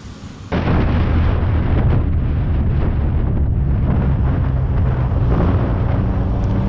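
Sport motorcycle ridden at speed, heard from a helmet camera: a steady low engine drone under heavy wind rush on the microphone, cutting in suddenly about half a second in.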